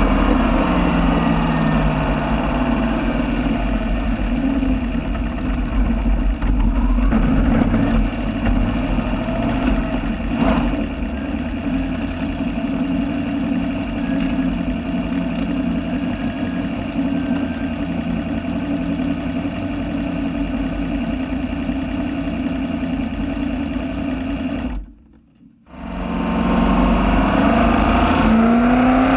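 Onboard engine of a small open-wheel race car lapping a paved oval. The engine note falls off at the start as the driver lifts, runs steadily through the middle, and rises again near the end under acceleration. The sound almost cuts out for about a second a few seconds before the end.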